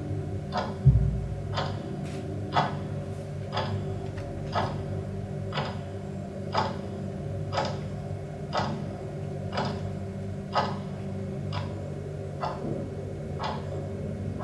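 A steady, clock-like ticking, about one tick a second, over a low steady hum. A dull thump about a second in is the loudest sound.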